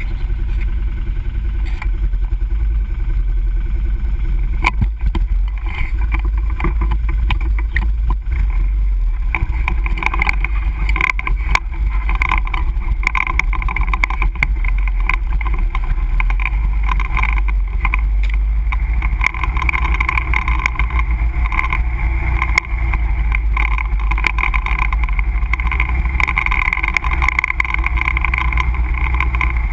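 ATV engine running as the quad rides along a bumpy dirt trail, picked up by a camera mounted on the machine, with a heavy low rumble and scattered knocks and rattles over the bumps. The engine note grows louder about ten seconds in.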